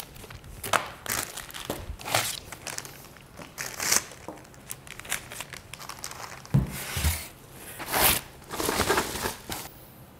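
Clear plastic packaging bags crinkling and a cardboard box rustling in irregular bursts as a projector and its accessories are unpacked. About two-thirds of the way through there are two dull knocks.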